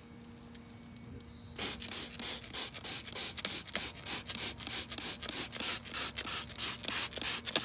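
Hand trigger spray bottle pumped rapidly and repeatedly, about three short hissing squirts a second, misting coil cleaner onto a radiator; the spraying starts about a second and a half in.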